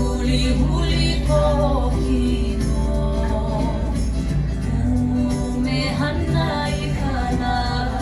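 Music with singing, jingle bells and tambourine.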